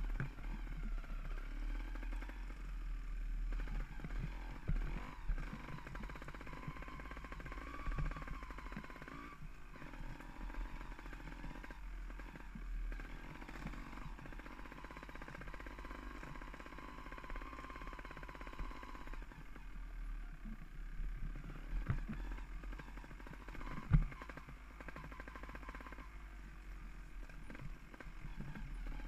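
Mountain bike descending a rocky singletrack: tyres, chain and frame rattling and knocking over stones and roots, with a few harder knocks. Steady wind rumble on the microphone.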